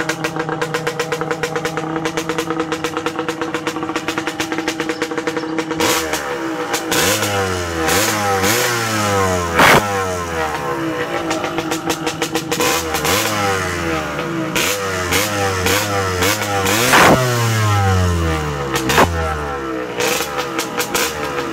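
Yamaha DT 125 two-stroke motorcycle engine idling steadily, then revved in repeated throttle blips from about six seconds in, its pitch rising and falling with each blip. A few sharp cracks stand out among the blips.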